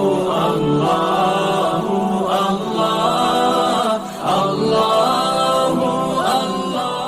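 A naat sung a cappella with reverb: layered voices chanting in long, bending phrases, with a short break about four seconds in.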